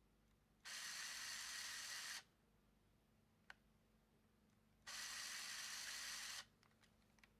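Leica AF-C1 compact camera's film-advance motor whirring twice, about a second and a half each time, with a sharp click between the two runs and a few light clicks after. This is the camera's fault behaviour: pressing the shutter release only advances one frame and takes no picture, which the owner puts down to the flash's long-discharged capacitor.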